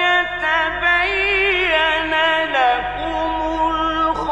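A male Quran reciter's voice in melodic mujawwad recitation, drawing out long held notes with wavering ornaments. The pitch slides down about halfway through, then settles on a steadier note.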